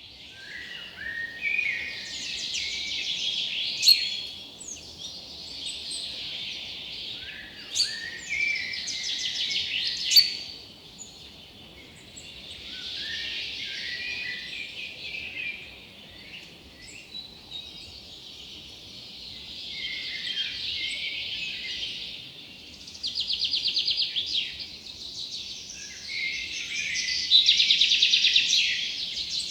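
Several songbirds chirping and singing together in a continuous chorus of overlapping calls, with a few sharp high notes and, later on, fast rattling trills.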